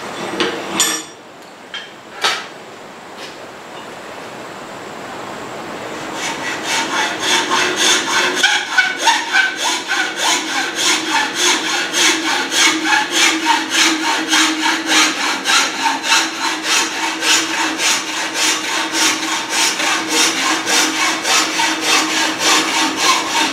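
Hacksaw cutting through a stag (deer) antler clamped in a vise: even back-and-forth rasping strokes, about three a second, starting about six seconds in after two sharp knocks.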